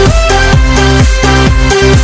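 Electronic dance music with a steady beat of deep, pitch-dropping kick drums and bass under held synth notes.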